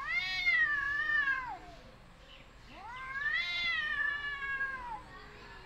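Two cats in a fighting standoff, yowling: two long drawn-out calls, the first straight away and the second about three seconds in, each rising then sliding down in pitch. It is the threat yowling of two cats squaring off.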